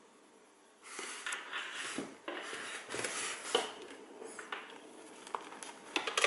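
Handling noise from a bulky box-style FPV goggle headset in a fabric cover being moved about beside a foam mannequin head: rustling with scattered light knocks and clicks, starting about a second in. A sharp click near the end is the loudest.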